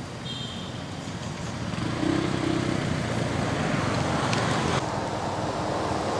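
Steady rumble of road traffic that grows louder about two seconds in, with a short low hum around the same moment.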